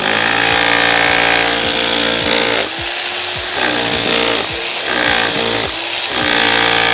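1050-watt INGCO RH10508 rotary hammer running in hammer-only mode, a pointed chisel chipping and breaking up concrete. It runs continuously, easing briefly a few times as the pressure on the bit changes.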